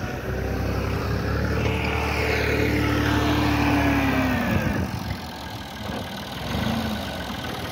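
Massey Ferguson 260 tractor's three-cylinder diesel engine working hard as it pushes a loose heap with a rear blade. The revs fall away sharply about five seconds in, and the engine runs on slower and quieter.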